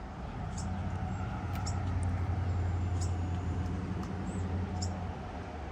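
A vehicle passing on the nearby road: a low engine and tyre hum that swells and then fades away.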